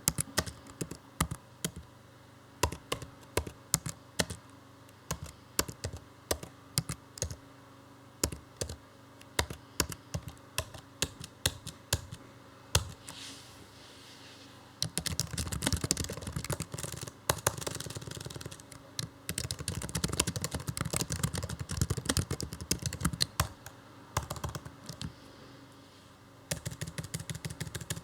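Typing on a computer keyboard. For about the first half the keystrokes come separately, a few a second; then the typing turns fast and continuous, eases to a few scattered keys, and turns fast again near the end.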